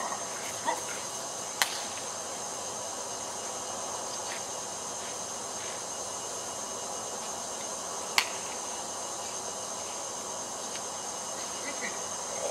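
Steady background hiss with a thin, constant high-pitched whine, broken by two sharp clicks, one about a second and a half in and one about eight seconds in.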